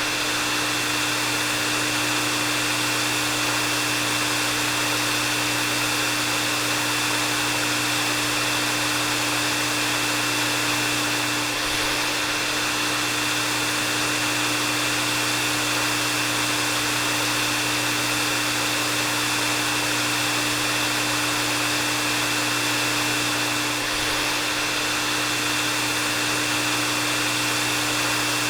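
Hair dryer running steadily: an even blowing rush with a low motor hum and a thin, high whine.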